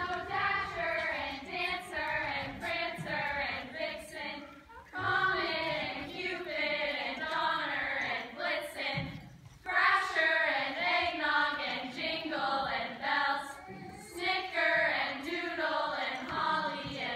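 A choir of voices singing together in phrases a few seconds long, each broken off by a short pause.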